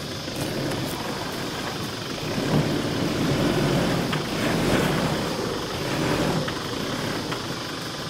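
Toyota Hilux N80's engine working under load as the truck crawls its front wheel up a rock ledge, rising in revs and louder through the middle, then easing off near the end.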